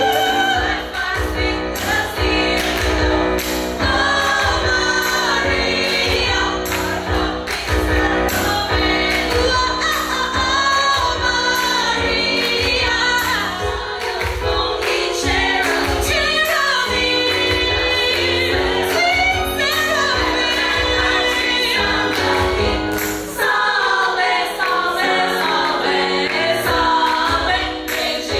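Women's choir singing a gospel-style number over an amplified backing of bass and a steady drum beat.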